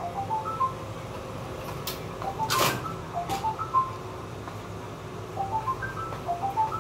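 Background music: a light melody of short notes stepping up and down. Over it come a few sharp clicks and one louder knock about two and a half seconds in.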